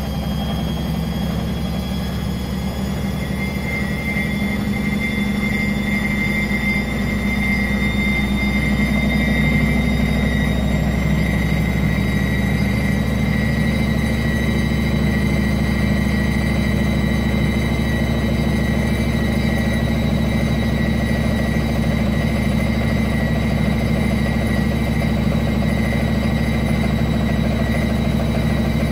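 Indesit WSB5085 washing machine spinning its drum: a steady low hum with a thin high whine that rises slowly through the first half, growing a little louder several seconds in, then holding steady.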